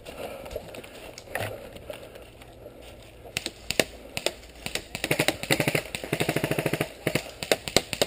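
Airsoft guns firing: a few single shots, then a long rapid burst at about thirteen shots a second in the middle, then more single shots near the end. Footsteps crunch in dry leaves.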